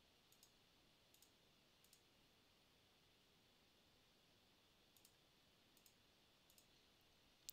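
Faint computer mouse clicks, six quick pairs spread across a near-silent background.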